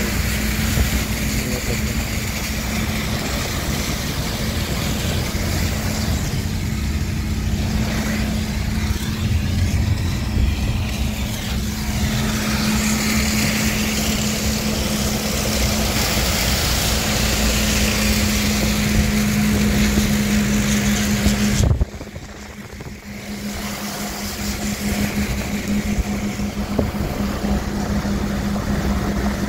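Car driving on a wet road, heard from the open side window: steady road and wind noise with a low drone. About two-thirds of the way through the noise drops off sharply, then builds back up over a few seconds.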